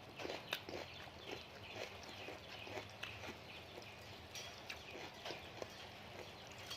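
Close-up chewing of crunchy papaya salad, a string of irregular crisp crunches and wet clicks a few times a second.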